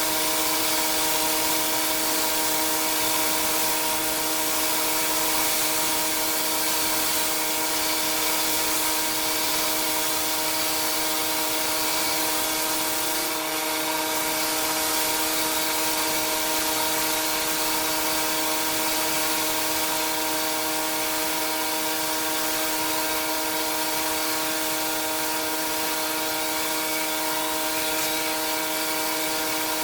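Pressure washer running steadily: a constant pitched hum from the machine's engine and pump under an even hiss of high-pressure water spray.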